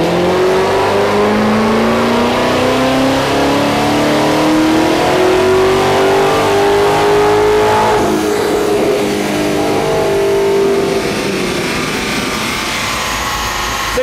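Supercharged C7 Corvette Stingray's 6.2-litre LT1 V8, with a Hennessy HPE700 upgrade, making a full-throttle pull on a chassis dyno. The revs climb steadily for about eight seconds, then the engine comes off the throttle and winds down near the end.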